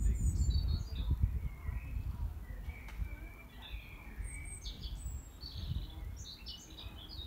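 Small birds chirping and calling, many short high chirps and brief trills, over a low, uneven rumble.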